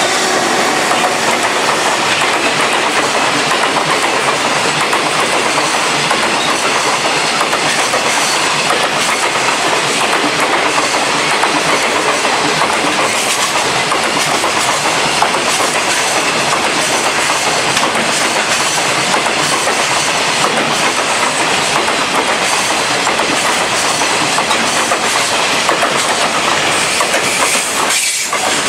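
Freight train hauled by an EF210 electric locomotive rolling past, a loud, steady rush of wheels on rail with continuous clatter from the rail joints, dipping briefly near the end.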